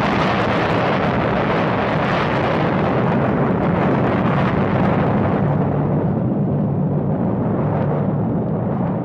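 Explosion sound effect for a nuclear blast. It starts suddenly with a long, loud, noisy rumble that slowly dulls and fades over several seconds.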